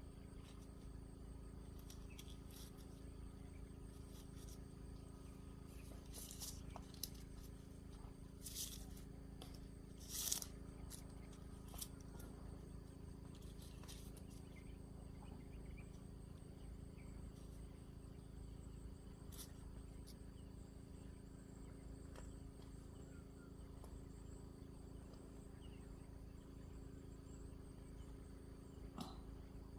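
Faint steady low hum with a thin high drone above it, and a few scattered clicks and taps, the loudest about ten seconds in.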